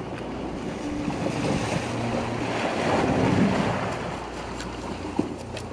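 Sea waves washing against a rocky shoreline, a surge swelling to its loudest about halfway through, with wind buffeting the microphone.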